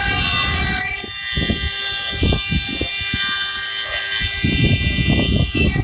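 CNC stone carving machine running: a steady high whine of several tones from its spindle motors over an uneven, rough grinding lower down, which grows heavier in the second half.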